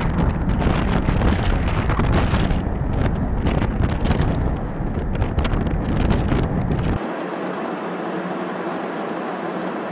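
B-1B Lancer bomber taking off on afterburner: loud, deep jet engine noise with wind buffeting the microphone. About seven seconds in the sound cuts abruptly to a steadier, thinner rush of engine and air noise without the deep rumble.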